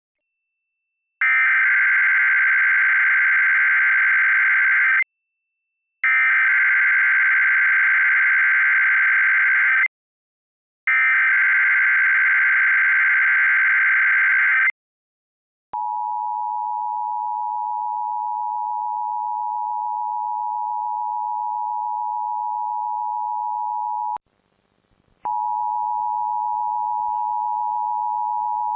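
Emergency Alert System SAME header: three buzzing digital data bursts of about four seconds each, a second apart. Then comes the EAS two-tone attention signal (853 and 960 Hz), a steady dual tone that lasts about eight seconds, breaks off, and starts again about a second later. The sequence marks the start of a Tornado Watch alert.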